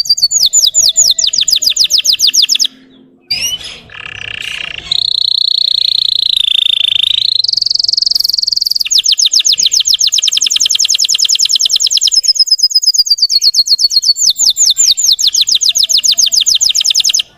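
Russian canary singing: long, fast trills of rapidly repeated high notes, a short break about three seconds in, then held, wavering notes and fast trills again, cutting off suddenly at the end.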